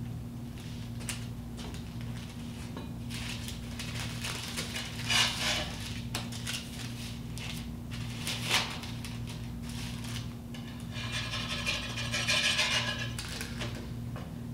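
Kitchen utensil noise at a tortilla press and electric griddle: two sharp knocks, about five and eight and a half seconds in, and a longer rough scraping stretch near the end, over a steady low hum.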